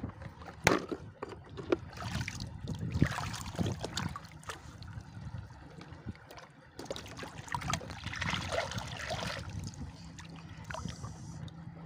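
Shallow water sloshing and splashing as small kupang mussels are sifted by hand in a plastic basket, with a few sharp clicks of shells knocking together in the first four seconds and bouts of splashing around three and nine seconds in.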